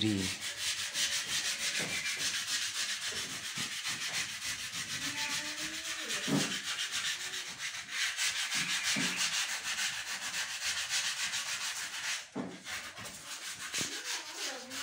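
Sandpaper rubbed by hand over filler patches on a ceiling, in quick, steady back-and-forth strokes with a short pause about twelve seconds in.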